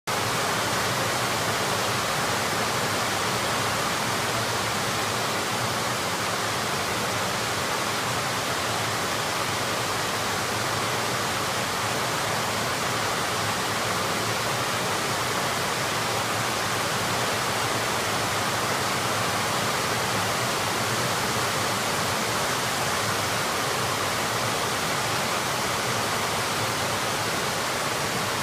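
Heavy monsoon rain pouring down, a steady dense hiss without let-up.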